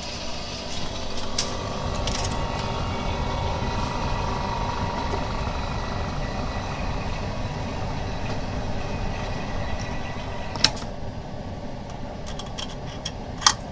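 BM02 screen laminating machine running with a steady mechanical hum and hiss. A sharp click comes about eleven seconds in, after which the hiss drops away, and a few lighter clicks follow near the end.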